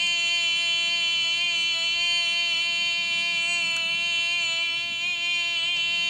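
A man's voice holding the long 'boiii' of the 'yeah boi' meme as one unbroken, steady-pitched note, with a slight waver.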